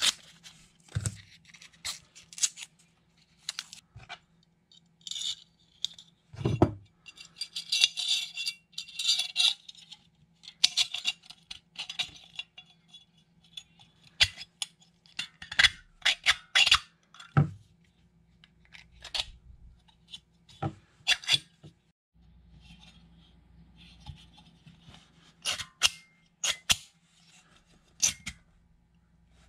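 Handling noise from small camper-shell hardware: blue plastic wrapping crinkling and tearing, and metal brackets and a spring-loaded hinge clicking, scraping and clinking in the hands and on the bench, in many short irregular bursts.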